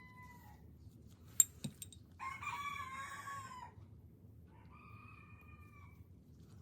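A rooster crowing in the background: the end of one crow at the start, a louder full crow in the middle, and another near the end. About a second and a half in, a sharp click, then a fainter one.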